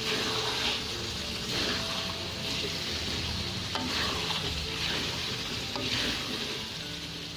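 Chili sambal sizzling in a metal wok while boiled eggs and fried potato slices are stirred through it with a metal spatula, the hiss swelling with each stroke about once a second.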